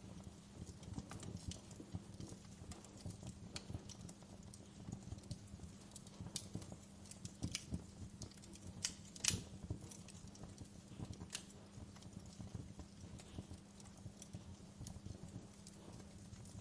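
Wood fire in a fireplace crackling, with irregular small snaps and pops and one louder pop about nine seconds in, over a low steady hum.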